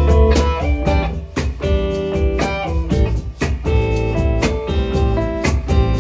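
Live band playing the instrumental opening of an acoustic song, with guitar over a deep bass line and sharp strokes keeping a steady beat about twice a second.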